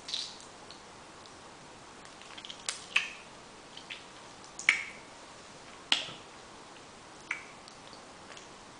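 Wet mouth smacks and sucking clicks from eating quenepa (Spanish lime) fruit, sucking the pulp off the seed. About six sharp, short smacks come at uneven intervals.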